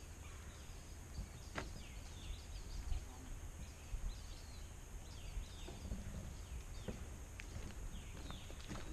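Outdoor ambience of birds calling, many short high calls that sweep downward and repeat every second or so, over a steady high hiss and low wind rumble on the microphone, with a few faint clicks.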